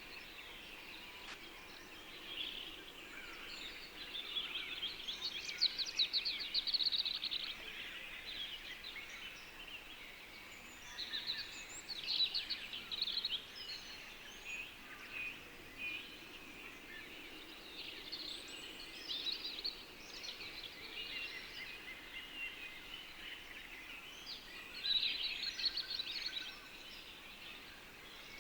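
Several songbirds singing in bursts of rapid trills and chirps every few seconds, over a faint steady background hiss.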